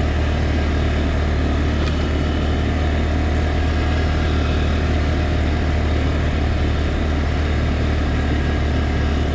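Grizzly 200cc ATV engine running at a steady speed while riding, a constant low drone that holds the same pitch and level throughout.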